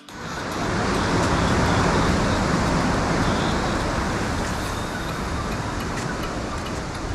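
Steady rushing noise that swells in over the first second and then eases slightly.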